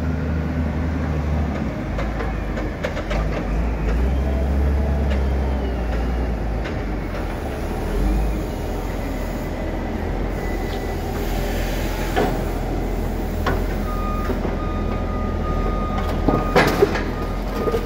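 Caterpillar wheel loaders' diesel engines running steadily as they work with log grapples. A few sharp knocks come through, with a cluster of loud metal knocks near the end as the grapple grips the logs on the autoclave cart. A thin steady whine joins in over the last few seconds.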